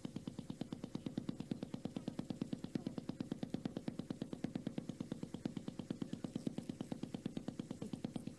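A motor running with a steady, rapid low pulse, about ten beats a second.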